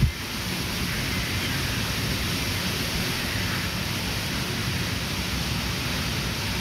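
Steady rushing of wind, an even hiss without gusts or distinct calls.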